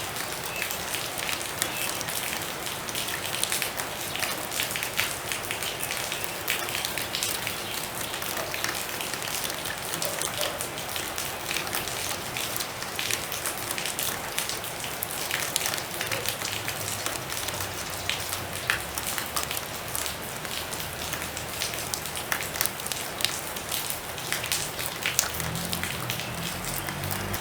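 Steady rainfall, a dense patter of many individual drops striking a surface over a constant hiss.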